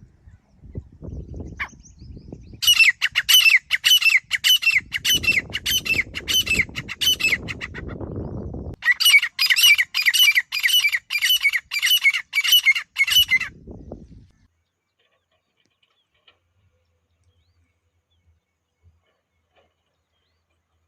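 Grey francolin calling: two long runs of shrill, rapidly repeated notes, about two a second, the first lasting some six seconds and the second about four and a half. A low rumbling noise runs beneath parts of the calling.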